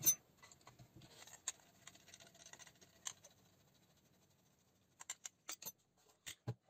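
Scattered sharp mechanical clicks from a VFC HK416 airsoft rifle: one louder click at the start, single clicks every second or so, then a quick run of four or five clicks about five seconds in and two more near the end.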